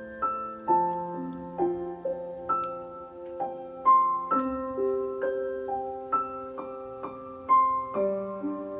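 Slow piano melody, single notes struck about twice a second and left to ring out over a faint low pulse.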